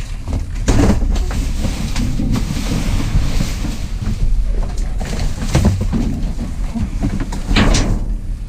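Gusty wind buffeting the microphone as a constant low rumble, with scattered knocks and rustles of handling.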